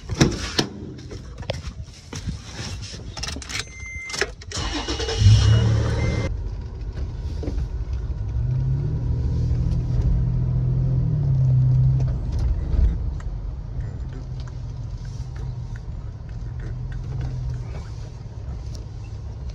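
Keys jangling and clicking as a car door is unlocked and opened. About five seconds in the car's engine starts, then runs steadily, heard from inside the cabin, its pitch rising and falling as the car pulls away and drives.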